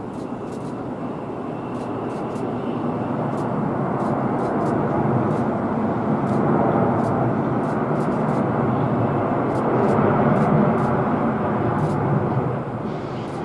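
Jet engine noise from a Boeing 787-8 airliner rolling along the runway: a steady rushing roar that grows louder over about ten seconds, then drops away sharply near the end.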